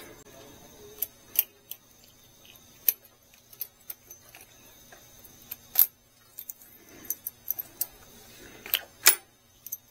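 Irregular light metallic clicks and clinks of small carburetor parts and fittings being handled by hand, with a few sharper taps scattered through.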